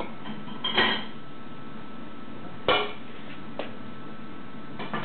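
A few separate clinks and knocks of small hard objects being handled and set down on a workbench, the loudest about two and a half seconds in, over a faint steady hum.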